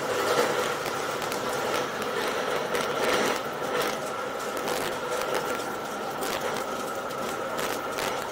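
Slick 540's six-cylinder Lycoming engine and propeller running steadily during a taxi run, heard from inside the cockpit, with scattered clicks and rattles over it.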